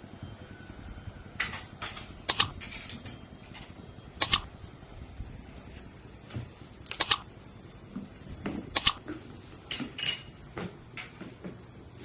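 Dishes and cutlery clinking: four loud, sharp clinks a couple of seconds apart among lighter clatter.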